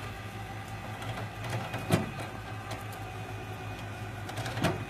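Vehicle engine idling with a steady hum, with two sharp knocks, one about two seconds in and one near the end.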